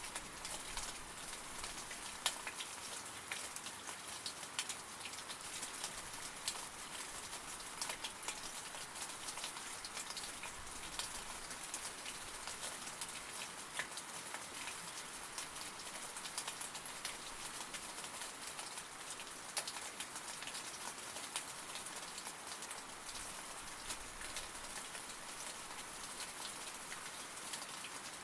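Steady rain falling, a constant hiss with many separate drops ticking on a surface.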